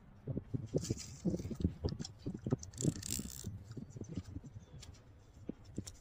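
Irregular rattling and knocking from a fishing rod and reel being handled close to the microphone, with a brief hissing rush about a second in and again about three seconds in.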